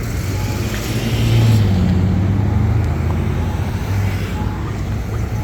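Road traffic: cars passing on a busy street, swelling as one goes by about a second in.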